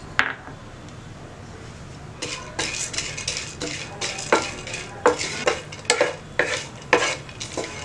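Wooden spatula scraping and stirring watermelon seeds in ghee around a nonstick frying pan, in quick repeated strokes two to three a second, starting about two seconds in. Before that there is only a faint steady sizzle.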